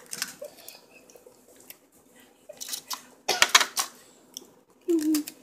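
Aluminium foil on a baking sheet crinkling and rustling as cookies are picked off it, in scattered short crackles with the loudest cluster about three and a half seconds in. A short hum of a child's voice near the end.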